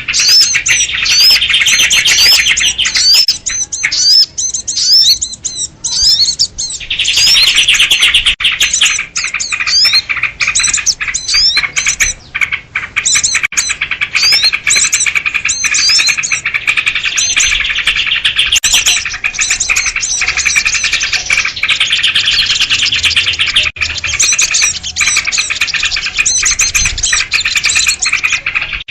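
A flock of sooty-headed bulbuls (kutilang) chattering noisily: a dense, unbroken mass of overlapping chirps and short rising calls, thinning briefly a few seconds in before filling back up.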